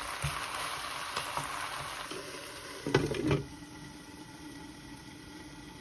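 Food sizzling and bubbling in a pan as it cooks, with a brief loud clatter of a utensil stirring about three seconds in; after that the sizzle is quieter.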